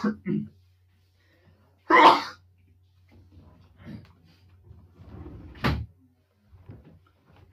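A person coughing twice, about two seconds in and again near six seconds, with faint mumbling between, over a low steady electrical hum.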